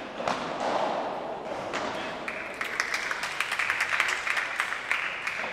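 Spectators clapping and cheering after a padel point, the applause swelling about two seconds in.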